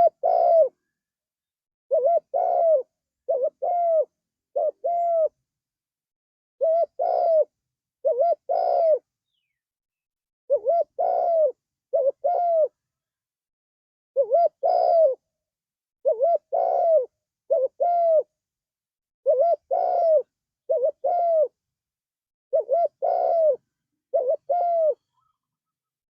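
Spotted dove (tekukur) cooing: short phrases of two or three coos, each note falling slightly at its end, repeating every second or two with complete silence between phrases.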